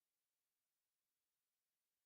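Near silence: a pause in the recording.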